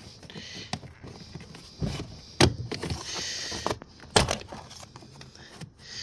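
Plastic trim tool levering up a plastic door-sill trim panel: scraping and creaking plastic, with sharp snaps as its push-in stud clips pop free, the loudest about two and a half and four seconds in.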